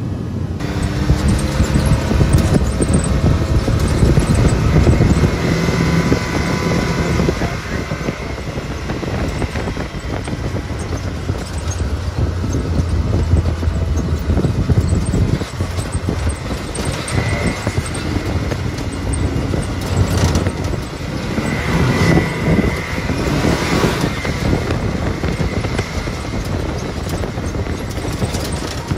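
Side-by-side UTV driving along a dirt trail: the engine runs steadily under a rough mix of tyre noise and short knocks and rattles from the vehicle.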